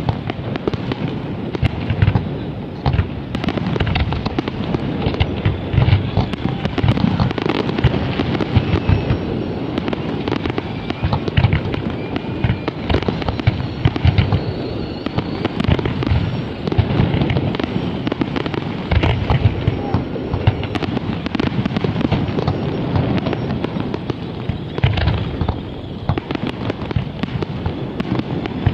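Fireworks display: aerial shells bursting in a rapid, continuous run of bangs with no let-up.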